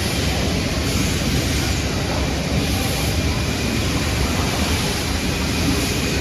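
Steady, dense whir and hum of factory machinery running, with no distinct strokes or rhythm.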